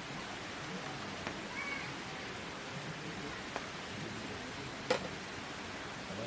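Steady rain with scattered faint drop ticks and one sharper tick about five seconds in.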